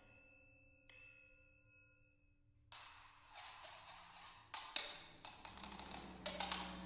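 Quiet contemporary music for solo percussion and ensemble. A struck metal percussion instrument rings with bell-like overtones, hit twice about a second apart, and fades. Then noisy, rasping sound follows, cut through by several sharp strikes.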